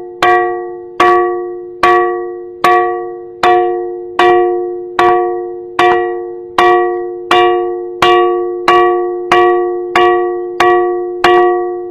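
A ringing rock (a "bell rock") struck over and over with a hand-held stone, a little faster than once a second. Each blow rings out like a bell with a few clear steady tones that fade before the next strike.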